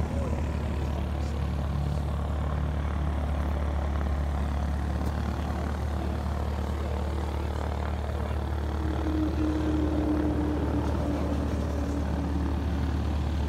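A steady engine drone with a low hum underneath, and a higher tone that swells and fades again about two-thirds of the way through.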